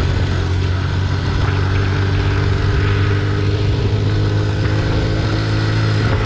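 Honda C90 motorcycle's small single-cylinder four-stroke engine running at a steady pace under way, with a hiss of wind and tyres on a loose gravel road.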